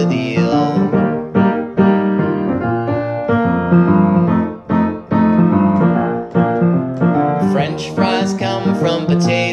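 Piano playing an instrumental passage, a run of steady notes and chords.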